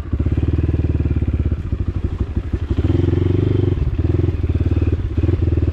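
Dirt bike engine running as the bike is ridden slowly, with a steady pulsing note. The throttle opens and closes: the engine grows louder about three seconds in, then eases off again.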